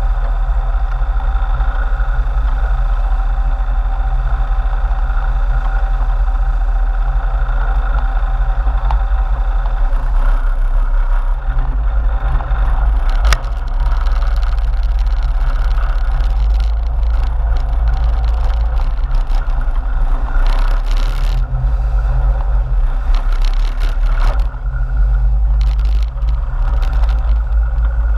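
Sportfishing boat's inboard engines running steadily under load, heard loud from high on the boat, as the boat manoeuvres behind a hooked marlin and churns up white water astern. About ten seconds in the note changes a little, and scattered knocks and rattles come in.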